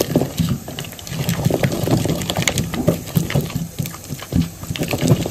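Wooden dal masher (pappu gutti) mashing boiled gongura leaves and green chillies in a terracotta pot: rapid, irregular wet squelching with dull knocks of the wood against the clay.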